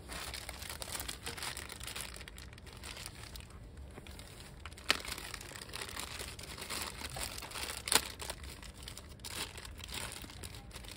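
Close rustling and crinkling handling noise, with two sharp clicks about five and eight seconds in.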